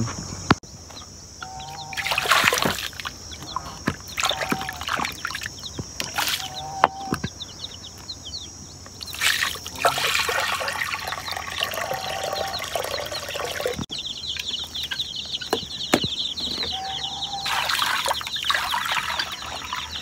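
Water poured from a bucket splashing into a shallow bowl on the ground, in several pours, with chickens clucking between them. A steady high insect drone runs underneath.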